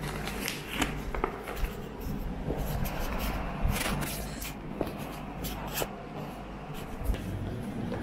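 Brown paper courier mailer being handled and torn open: irregular rustling and crackling of the stiff paper.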